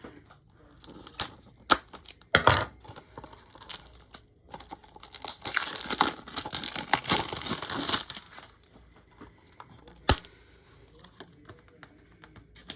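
A Blu-ray's packaging being opened by hand: tearing and crinkling with scattered clicks, loudest in a long crinkling stretch about halfway through, and one sharp click near the end.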